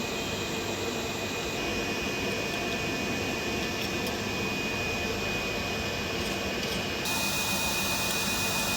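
A machine running steadily, a whirring hum with a constant high-pitched whine, turning brighter and a little louder about seven seconds in.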